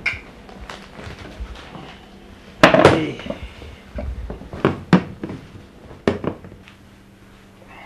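Drinks being handled and set down on a low table: a longer clatter about three seconds in, then a few sharp knocks, over a steady low hum.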